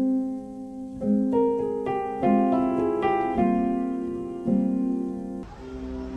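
Solo piano music: slow chords struck about once a second, each ringing and fading away, breaking off near the end.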